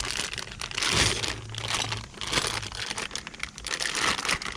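Packaging wrap being crinkled and pulled off a newly unboxed motorcycle backrest part, in irregular rustling handfuls.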